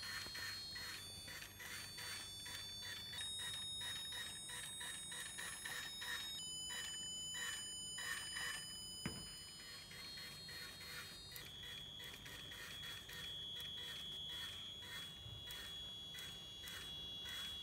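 Piezo buzzers of a homemade RC car's ultrasonic parking-assistance system beeping in quick, even repeated pulses, a warning whose rate signals how close the obstacle is. A steady high tone runs behind the beeps and jumps in pitch a few times, and there is a single short knock about halfway through.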